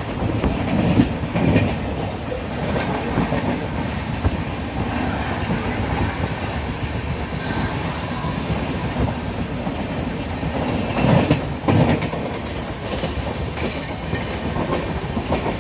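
Express passenger train running, heard from on board: a steady rumble of wheels on track, with two pairs of heavy clacks as wheels pass over rail joints, about a second in and again around eleven seconds.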